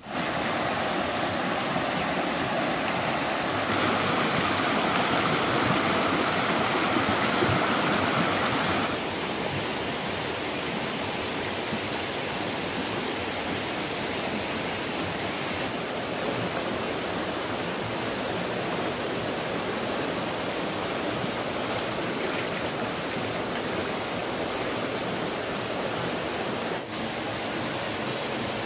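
Shallow mountain stream rushing over rocks: a steady rush of water, a little louder for the first nine seconds or so.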